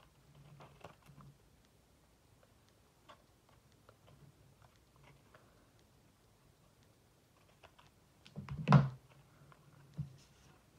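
Scissors trimming overhanging strips of patterned paper from the edge of a card: a few quiet snips and paper rustles, then a louder knock with rustling near the end as the card and scissors are handled on the craft mat, and one more short click.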